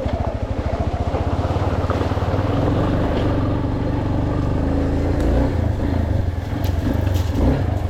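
Yamaha Lander 250's single-cylinder four-stroke engine running steadily while the bike is ridden off-road, with a few sharp ticks near the end.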